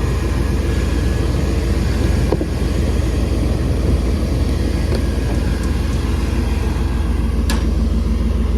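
OBS pickup truck's engine running at a steady idle, just started after a no-crank, no-start fault was cured with a new starter and fuse. It is a deep, even rumble, with a couple of faint clicks.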